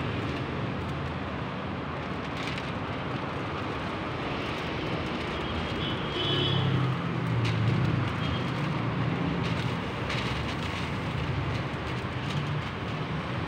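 Steady low mechanical hum over general background noise, swelling a little about halfway through, with a few faint ticks.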